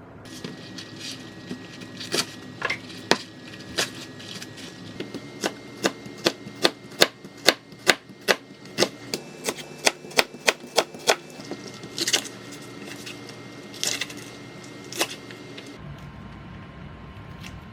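Knife chopping on a cutting board: sharp knocks, spaced at first, then a quick even run of about three a second in the middle, then a few spaced strokes near the end.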